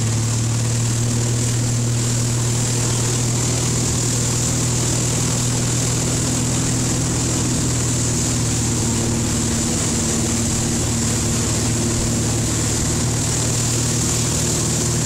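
Motorboat engine running steadily at speed while towing a tube, a low hum under a steady rush of wind and churning water.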